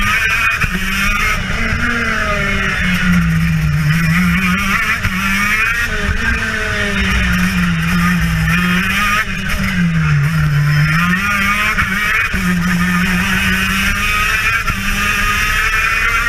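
TM KZ10B 125cc two-stroke shifter kart engine at race pace, heard onboard; its note dips and climbs again and again as the kart brakes into and accelerates out of the corners.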